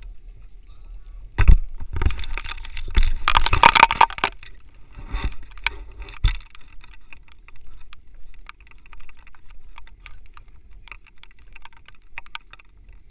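Loud rustling and knocking from a handheld camera being carried and moved, for a few seconds near the start. After that, scattered light ticks like raindrops over a faint low rumble.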